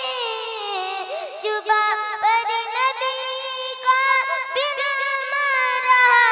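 A young girl singing a naat into a microphone. Her high voice moves through wavering, ornamented melodic runs, amplified through the PA.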